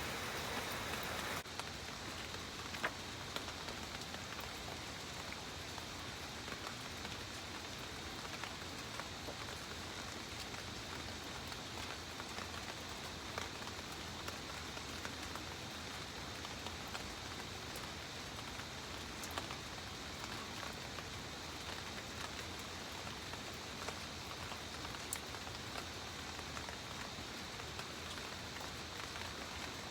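Steady rainfall with scattered louder drip ticks; the rain dips a little in level about a second and a half in.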